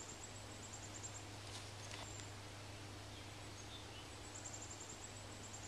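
Faint woodland ambience: a steady low hum under a soft hiss, with several quick runs of very high chirping trills and a few short, lower chirps.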